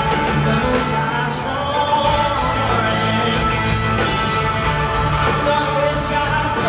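Live country-pop band music in an arena, led by acoustic guitar with a male voice singing, played loud over the PA and heard from the audience.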